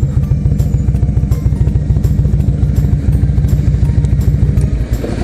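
Harley-Davidson touring motorcycle's V-twin engine idling, a steady run of rapid low pulses.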